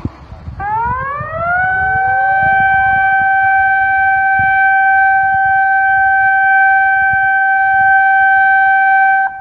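Civil defence warning siren sounding a tsunami alert. It winds up in pitch over about a second, then holds one steady tone and cuts off sharply just before the end.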